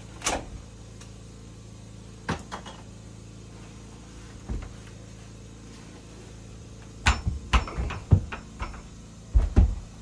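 Heavy homemade door being handled and tried in its frame: scattered wooden knocks and thumps, with a quick run of knocks and bumps in the last three seconds, the loudest thud near the end.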